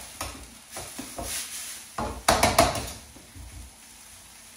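A cooking utensil knocking and scraping in a pan of sizzling curry masala as it is stirred, with a loud clatter a little past halfway, then quieter frying.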